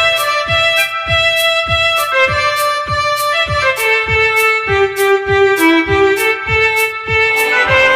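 Symphonic folk metal music: a fiddle lead melody over a steady drum beat of just under two hits a second. A fuller, denser layer of instruments comes in near the end.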